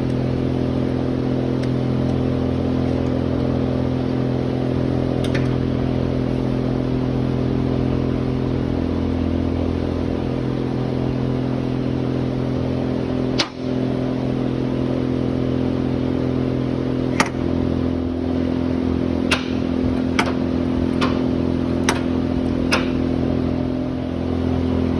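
An engine idling steadily. Partway through come a handful of sharp metal clicks and knocks, about seven, from tools working the key out of the shaft's keyway.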